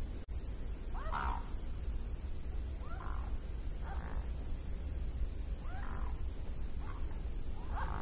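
Mute swan giving six short calls at uneven intervals, a second or two apart, over a steady low rumble.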